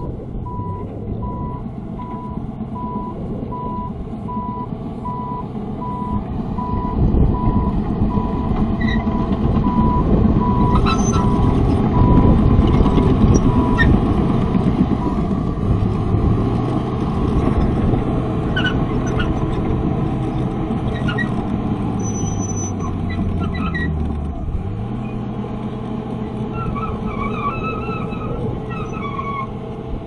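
Komatsu D41P crawler bulldozer's diesel engine running under load, with its reversing alarm beeping about twice a second through the first half, then stopping. Later the engine's pitch steps up and back down.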